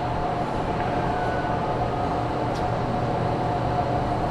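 Steady mechanical hum: a constant low drone with a steady mid-pitched tone over even background noise.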